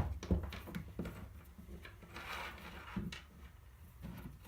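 Small clicks and knocks of a DeWalt sander's parts being handled and worked apart by hand, with a brief scrape a little after two seconds in.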